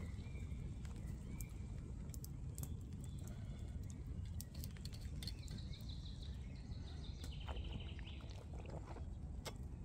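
Woodland ambience: a steady low rumble with scattered light clicks, and a bird singing a few short high phrases with a quick trill in the second half.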